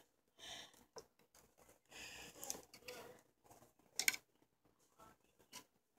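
Faint rustling and light knocks of plastic dolls and small cloth covers being handled, with one sharper click about four seconds in.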